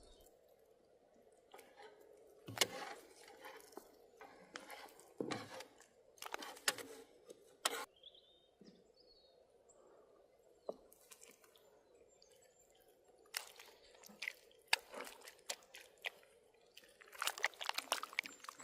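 Food-preparation handling noises: irregular knocks, crunches and wet squishing sounds, with quiet gaps between them.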